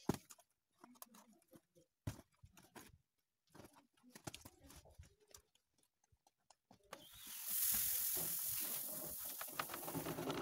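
A sharp knock at the start, then scattered faint clicks and rustles; about seven seconds in, a steady rushing hiss of paddy (unhusked rice) grain pouring out of a woven bamboo basket onto a heap, lasting about three seconds.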